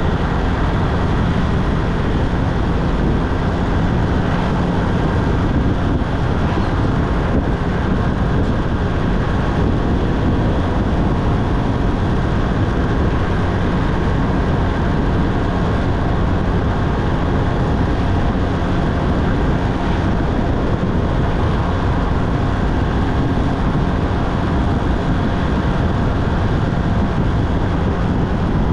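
Motorcycle on the move at road speed: a steady, unbroken mix of engine, tyre and wind noise.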